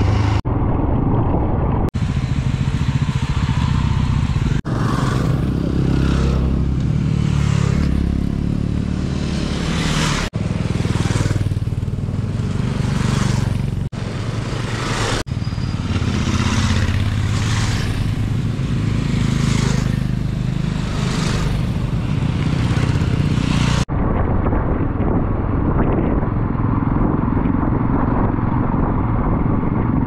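Motorcycle riding along the road: engine running under a heavy rush of wind noise. The sound changes abruptly several times, as short riding segments are joined together.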